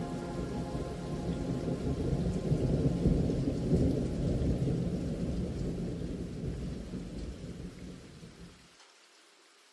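Thunderstorm recording: rolling thunder over steady rain, swelling to its loudest about three seconds in, then fading out near the end.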